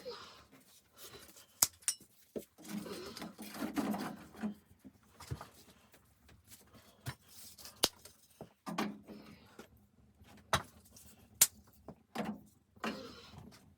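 Gear being handled while a hot tent is set up: scattered sharp clicks and knocks, the sharpest about 1.5, 8 and 11.5 seconds in, between short rustling, crunching bursts.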